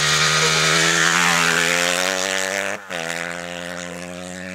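Motocross bike engine running hard as the bike leans through a turn close by, loudest about a second in. A sudden short break about three seconds in, then a steadier, quieter engine drone.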